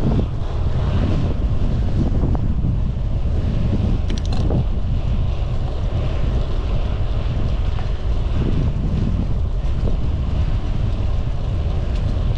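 Wind buffeting the microphone of a moving bicycle rider, a loud steady low rumble, with a brief clicking about four seconds in.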